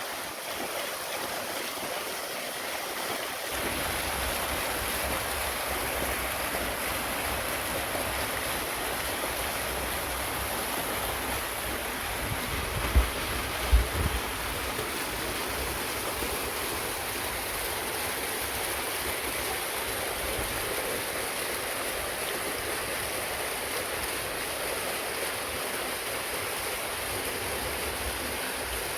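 Steady rushing of falling water from a waterfall. About halfway through, two brief low thumps stand out.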